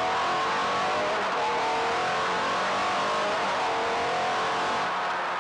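Sports car engine running hard in third gear, heard from inside the cabin. Its pitch rises and dips slowly with the throttle.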